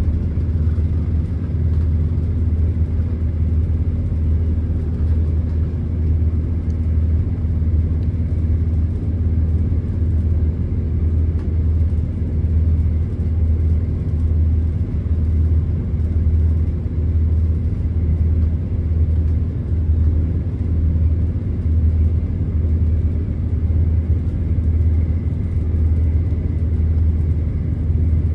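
Steady low rumble inside a class 170 Turbostar diesel multiple unit under way: the underfloor diesel engine and wheels on the track, heard from the passenger saloon.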